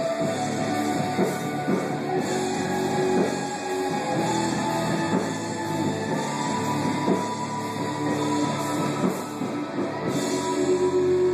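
Rock music playing, with repeated beats under several sustained pitched parts. A steady held note comes in near the end.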